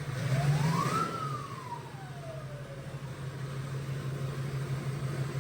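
A small motor spinning up quickly and winding back down over about three seconds, with a steady low hum underneath.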